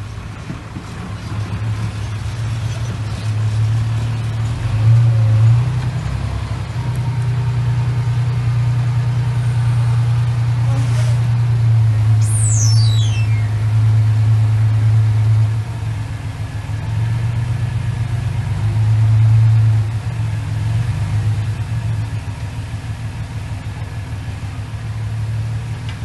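Dump truck engine running steadily under load while its hydraulic hoist raises the tipper bed, a low even hum that swells and eases a few times. A short, high, falling chirp sounds briefly about halfway through.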